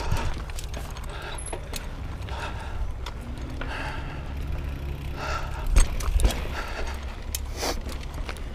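Mountain bike ridden over rough, rooty and rocky singletrack: a steady low rumble with constant rattling and sharp clicks from the bike, and two harder knocks about half a second apart roughly two-thirds of the way through.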